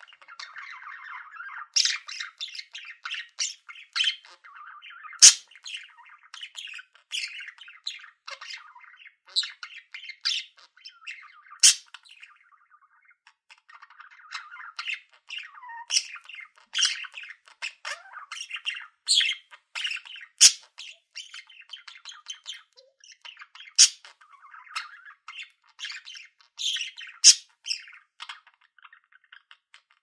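Budgerigars chattering and warbling without pause, broken by frequent sharp, high chirps and squawks, with a brief lull about twelve seconds in.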